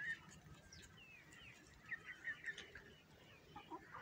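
Faint chirping of birds: scattered short, sliding chirps, with a louder little cluster about two seconds in.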